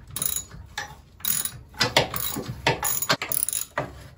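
Socket ratchet clicking in repeated short bursts as its handle is swung back and forth, loosening the bolts of a go-kart's engine mounting plate.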